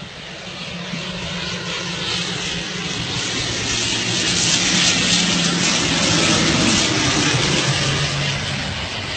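Twin-turboprop airliner flying low overhead on final approach: a propeller drone that grows steadily louder, peaks about two-thirds of the way through, then eases off with a slight drop in pitch as it passes.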